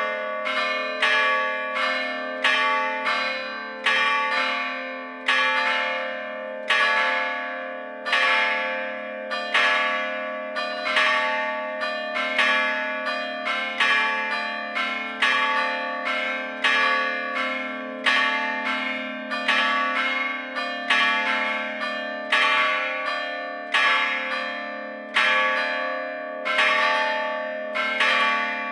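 Three church bells cast by the Gescher foundry, struck by hammers rather than swung, ringing together: a steady, even train of strokes about once a second, each one ringing on under the next.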